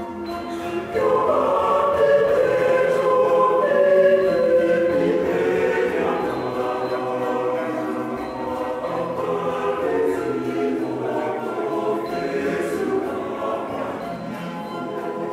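Mixed choir of men's and women's voices singing in harmony, swelling louder about a second in.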